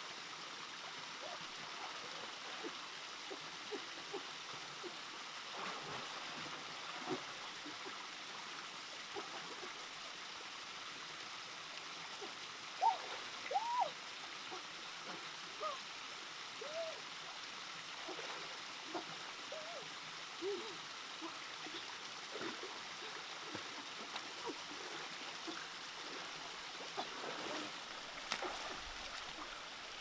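Stream and small waterfall running steadily, with scattered small splashes and water plinks as someone wades and grapples in the pool.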